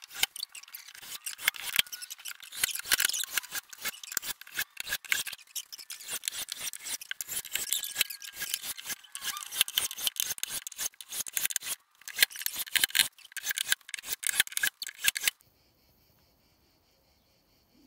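Cordless drill driving screws into a plywood subwoofer cabinet top: a dense, uneven run of rapid clicks and rattles, broken briefly about twelve seconds in and stopping abruptly about fifteen seconds in.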